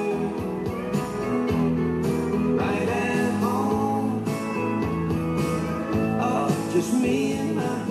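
A country-style song playing over a sound system: a singer over guitar with a steady beat.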